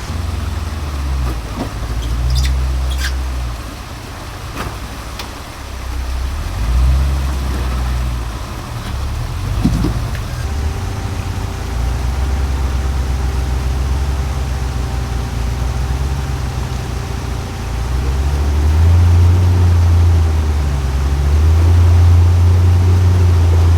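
Off-road vehicle engine running at low revs, swelling and easing as it crawls, with a few sharp knocks in the first several seconds. A steady whine joins from about ten seconds in, and the engine grows louder near the end.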